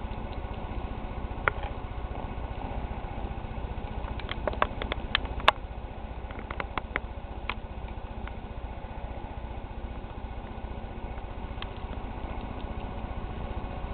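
Scattered sharp clicks over a steady low hum. The clicks come singly at first, then as a quick run of half a dozen between about four and five and a half seconds in, then a few more and one late one.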